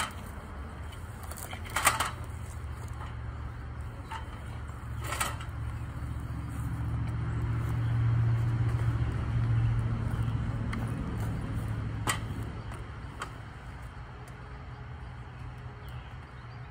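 A low engine rumble that builds over several seconds, is loudest midway and then fades, like a motor vehicle going by. A few sharp snaps stand out above it.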